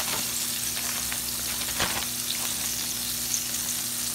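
Whiting fillets deep-frying in hot oil in a cast-iron skillet: a steady sizzle with small crackling pops.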